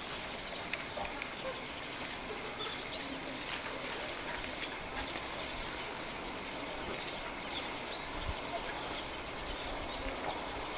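Outdoor background of distant, indistinct people's voices, with short high chirps now and then.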